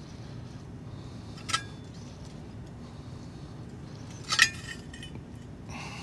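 Two sharp metallic clinks as a metal gas valve and threaded pipe fitting are handled, the second louder with a short ring, then a brief scrape near the end, over a steady low background rumble.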